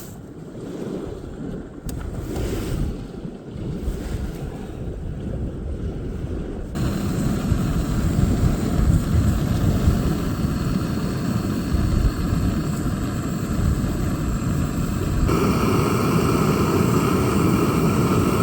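Wind buffeting the microphone outdoors, a rough low rumble of noise that gets louder and changes character abruptly about 7 and 15 seconds in.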